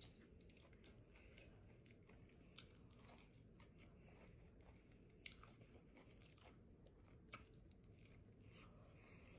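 Faint close-up mouth sounds of biting into and chewing a fried catfish sandwich, with a few scattered soft crunches and clicks.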